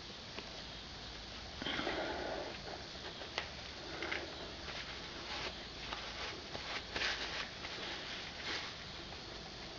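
1976 Honda CB550F's new drive chain turning over its new sprockets, with a sharp pop about three and a half seconds in and several softer scraping bursts: the popping the owner hears at one spot in the chain's rotation.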